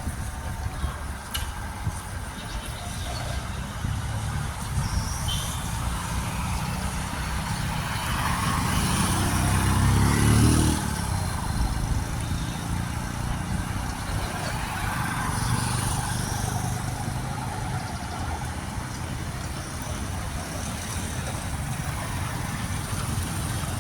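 Road traffic: motor vehicles running by with a steady low rumble, one passing close and loudest about ten seconds in before fading.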